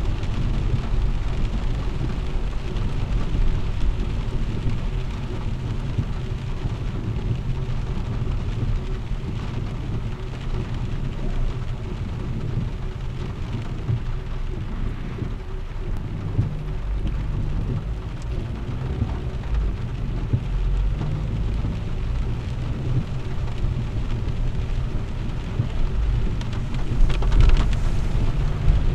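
Heavy rain falling on a car's roof and windscreen, heard from inside the cabin, over a steady low road rumble and tyres hissing on the wet road. A brief louder splash comes near the end.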